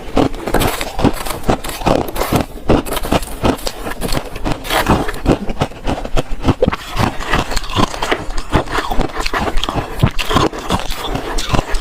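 Freezer frost being crunched close to the microphone: a steady run of crisp crunches, several a second.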